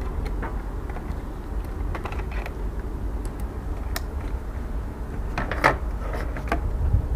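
Scattered clicks and small knocks of tools and parts being handled on an air-conditioner outdoor unit, over a steady low rumble, with a louder cluster of clicks about three-quarters of the way through.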